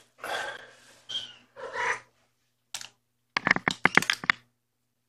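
A cat meowing three or four times in short calls, then a quick run of sharp clicks and knocks about three and a half seconds in, from a hand handling the camera close to the microphone.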